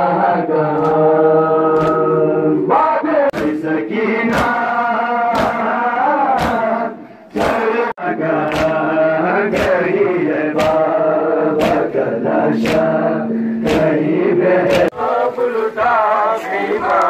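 Crowd of men chanting a Muharram mourning lament in unison on long held notes, with sharp slaps of hands striking chests (matam) landing in a steady beat somewhat more than once a second.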